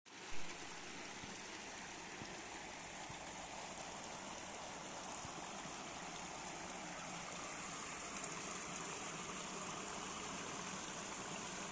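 Water rushing steadily through a narrow cut and over a bamboo slat screen onto a mesh fish net, splashing and foaming. A brief bump about half a second in is the loudest moment.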